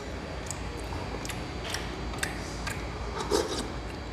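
Light clicks and scrapes of a plastic utensil against a small plastic cup of chili while food is scooped and eaten, a few ticks a second apart, over a low steady room hum.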